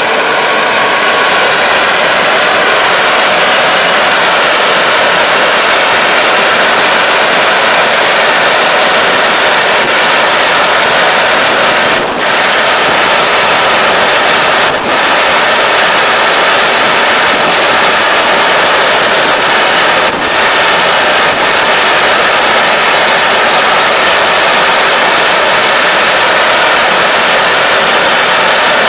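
Kubota DR575 five-row combine harvester running under load while cutting and threshing rice: a loud, steady machine noise of the engine and working parts, with a few brief dips.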